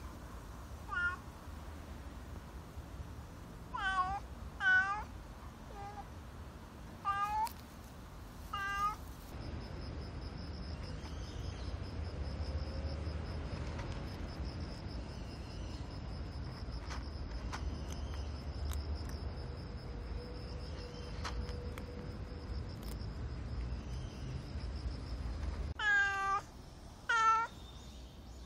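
Black cat meowing again and again in short, arching calls a second or so apart, in two runs. In the long gap between the runs there are no calls, only a steady thin high whine and a low rumble.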